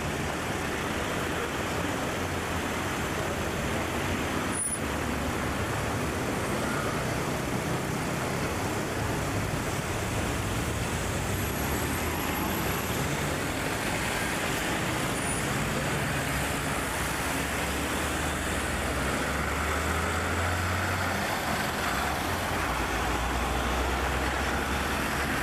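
Steady city street traffic noise: cars and vans driving past with a low engine rumble that swells and fades as they go by.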